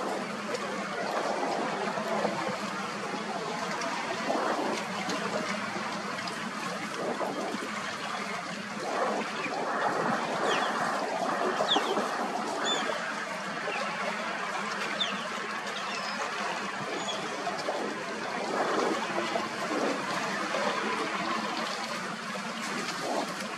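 Steady rushing, trickling water-like noise, with a few faint short high chirps around the middle.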